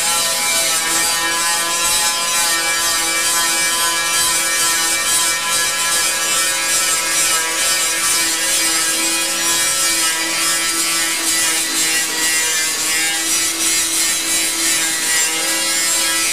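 Handheld electric grinder grinding the vehicle's metal body panel, throwing sparks: a steady, loud whine that holds its pitch, over a high hiss.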